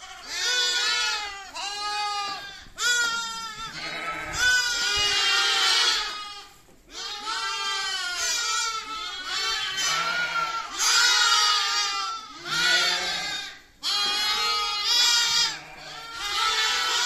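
A group of lambs bleating, their high, wavering calls overlapping almost without a break.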